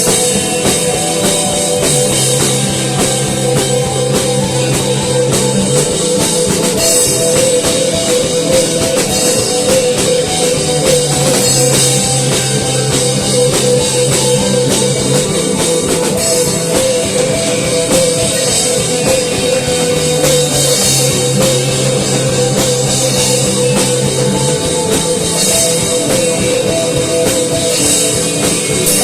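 Instrumental rock music: a drum kit keeps a steady beat under a bass line that changes note every few seconds, with a held high note over it.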